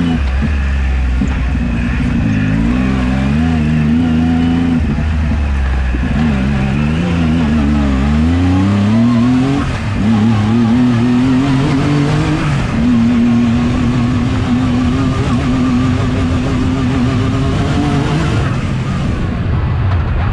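Turbocharged Yamaha YXZ1000R's three-cylinder engine pulling hard, its pitch rising and falling with the throttle. About ten seconds in it briefly drops off, then climbs again and holds a steadier note to the end.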